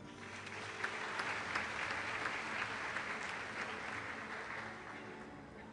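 Audience applauding. The clapping starts just after the beginning, is loudest in the first few seconds, and dies away near the end over soft background music.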